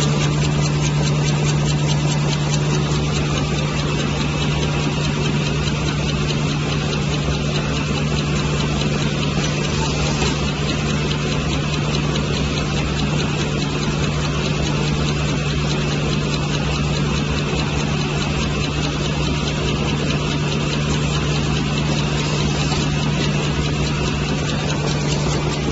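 Automatic facial tissue folding machine running: a steady mechanical hum with fast, even clattering from its moving parts.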